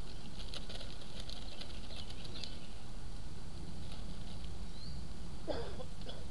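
Salmon searing in an oiled pan: irregular fine crackling and sizzling over a steady low rumble, with a brief louder noise near the end.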